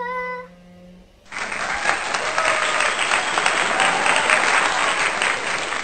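Applause: many hands clapping, starting abruptly about a second in and carrying on steadily, after a brief voice at the very start.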